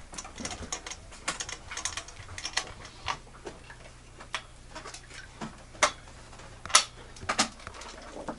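Scattered, irregular light clicks and knocks of equipment being handled, with a couple of sharper knocks about six and seven seconds in, over a faint steady low electrical hum.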